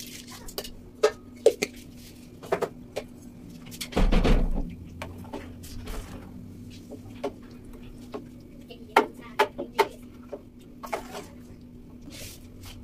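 Metal spoon clinking and scraping against an enamel pot while stirring broth, a scatter of sharp clicks with one louder clatter about four seconds in, over a steady low hum.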